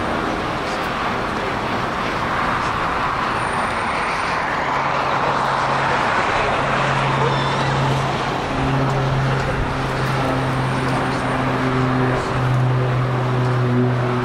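Jet airliner engines with a steady roar that swells in the middle, mixed with road traffic, and a low droning hum that comes in about five seconds in.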